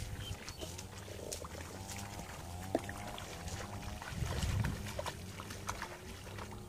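Barefoot steps and rustling through long grass, with low rumbles of wind on the microphone, the strongest about four seconds in.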